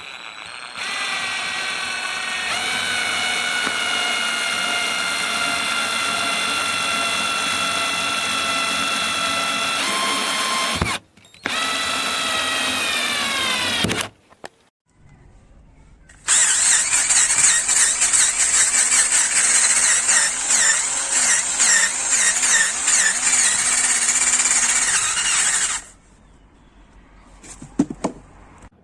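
KIMO 20V cordless drill driver motor and gearbox whining at speed, the pitch stepping up soon after it starts. After a brief stop it runs again and winds down in pitch as it slows. After a pause comes a louder, harsher run of about ten seconds.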